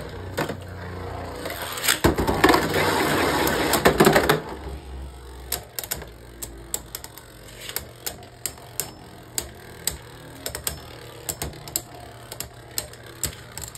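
Beyblade Burst spinning tops, Mirage Fafnir and its opponent, spinning and clashing in a plastic stadium right after launch: a dense loud rattle of grinding and hits for about the first four seconds, then sharp separate clicks of the tops knocking into each other, one or two a second, to the end.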